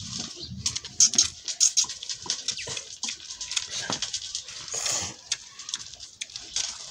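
A puppy and a calf suckling at a goat's teats: quick, irregular smacking and sucking noises, several a second.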